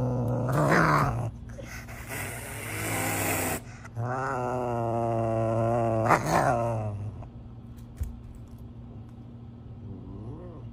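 Serval growling in long, low, steady growls while holding food in its mouth, with a harsh hiss between them about two seconds in. The growling stops about seven seconds in and only quiet sounds follow.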